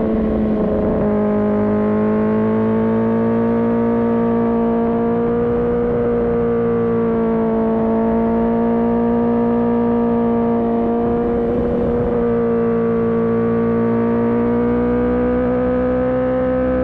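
Kawasaki ZX-10R's inline-four engine held at a steady high rev, its pitch dropping slightly about a second in and rising a little near the end.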